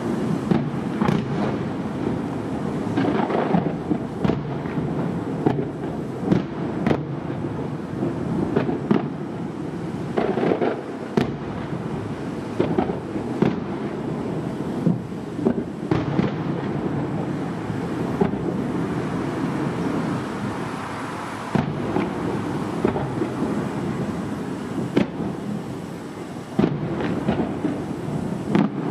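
Aerial firework shells bursting over the sea in quick succession, many booms and crackles overlapping. A continuous rumble carries between them as the bangs echo off the hills around the bay.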